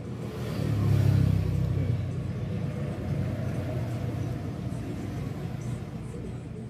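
A motor vehicle's low engine rumble passing by. It swells to its loudest about a second in, then slowly fades.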